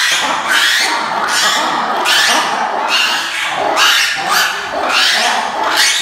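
Red ruffed lemurs calling all together in their loud roar-shriek chorus: harsh, overlapping screams from several animals, pulsing about twice a second.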